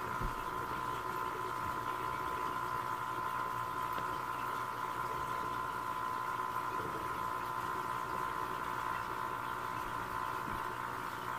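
Aquarium pump running with a steady, unchanging hum, over a faint bubbling of water.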